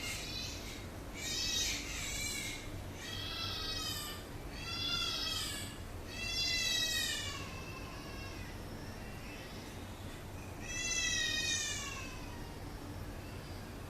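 A cat meowing repeatedly: about six high calls, each under a second and falling in pitch, most in the first seven seconds and one more later on, over a low steady hum.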